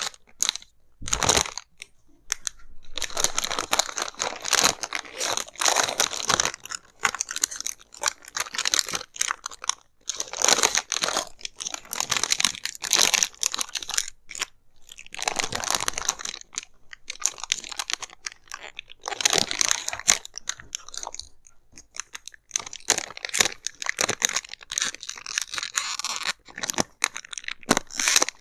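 Close-miked handling of headphone packaging: cardboard and wrapping crunching and crinkling in dense flurries of rapid scratchy clicks, with short pauses between them.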